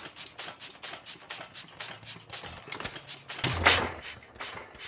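1917 Fuller & Johnson Model N single-cylinder hit-and-miss engine running, its valve gear and igniter clicking several times a second while it coasts, then firing once about three and a half seconds in with a loud exhaust bang.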